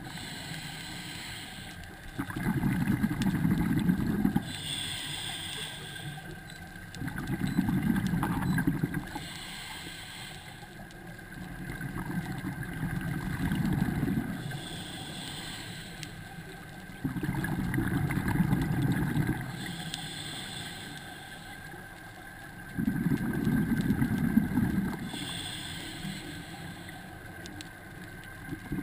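Scuba diver breathing through a regulator underwater: a hiss on each inhale, then a louder rush of exhaled bubbles lasting about two seconds, about every five to six seconds, five breaths in all.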